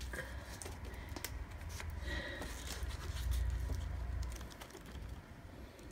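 Pages of a book being handled and leafed through: soft rustles and scattered small clicks, over a low rumble.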